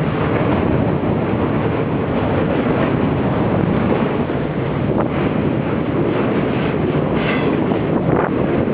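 Freight train passing close by at full throttle: two EMD SD40-2 diesel locomotives running in eighth notch, with box cars rolling over the rails. A few sharp wheel clicks come through later on.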